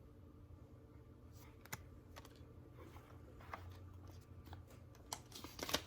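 Faint scattered clicks and taps of paper cards and packaging being handled, with a quick run of louder clicks near the end. A low steady hum runs underneath.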